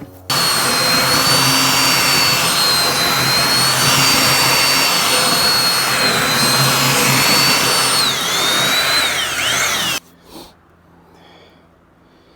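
Electric power tool cutting into thick copper cable with a loud, steady, high whine. It starts abruptly, the pitch sags and wavers under load about eight seconds in, and it cuts off suddenly about two seconds later.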